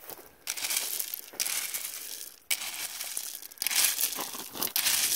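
Small stones clattering and scraping as a three-tined hand cultivator rakes through a loose gravel pile, in about five strokes of roughly a second each.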